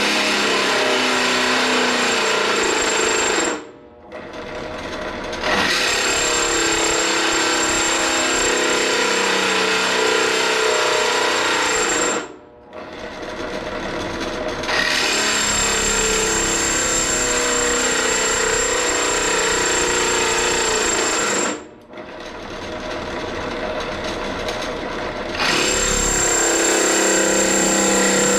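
Harbor Freight benchtop drill press cutting into steel plate with a step-up drill bit: a loud, harsh cutting noise with a thin high steady whine, breaking off three times for a few seconds as the bit eases out of the cut. The bit is dull, which the owner suspects is why it struggles to cut.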